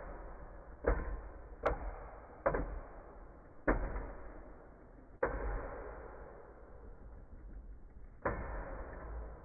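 Wolborg and Hound Dog Beyblade spinning tops clashing in a plastic bowl arena: about six sharp clacks as they collide, each followed by a rattling clatter that fades as they grind against each other.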